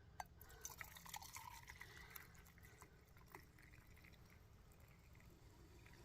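Faint pouring and dripping of hot water with a few light clinks, over roughly the first half.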